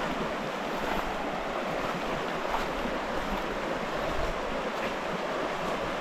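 Creek water running steadily, a continuous rushing wash.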